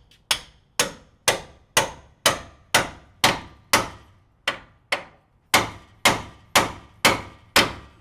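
Hammer blows on the steel front suspension of a Chevy truck, during a strut and upper control arm job: about two ringing strikes a second, with a short pause about halfway through.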